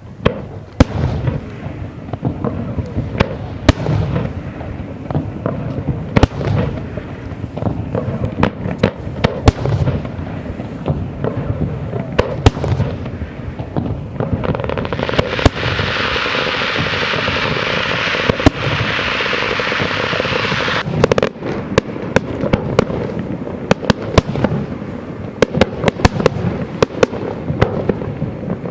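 Fireworks bursting in rapid succession: repeated sharp bangs and cracks throughout. In the middle comes a dense hissing spell of about six seconds.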